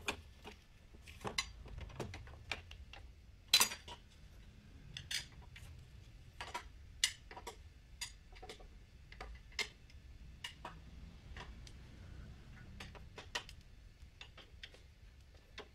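Irregular sharp metallic clicks and clinks of hand tools on a scooter's metal CVT cover, with one louder clack about three and a half seconds in.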